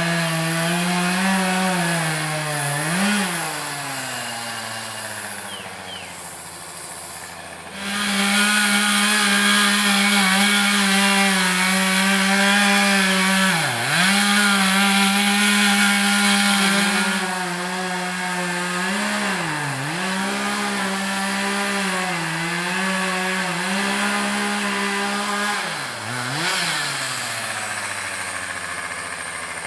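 Two-stroke chainsaw cutting into a dead tree. The engine runs at high revs, eases off and runs quieter for several seconds after about three seconds in, then opens up to full throttle again around eight seconds in. Its pitch sags briefly a few times as the chain bites and the engine bogs under load.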